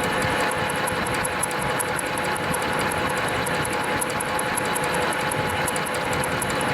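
Metal lathe running steadily: a constant machine hum with a steady whine and a fast, even ticking on top.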